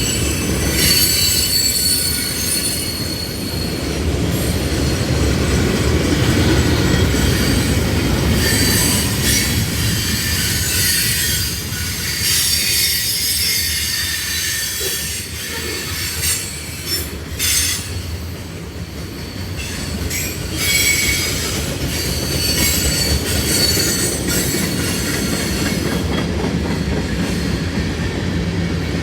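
Railroad cars rolling past on the track: a steady low rumble of wheels on rail, with high metallic wheel squeal coming and going over it.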